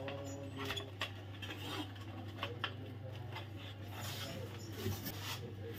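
Light handling noise of a thin metal strip and room-heater frame being fitted together: scattered small clicks and scrapes, over a steady low hum.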